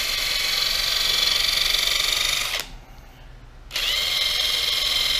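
Cordless drill spinning a buffing pad to polish an old plastic gauge-cluster lens: a steady high whine that stops about two and a half seconds in. It starts again a second later, rising in pitch as it spins back up.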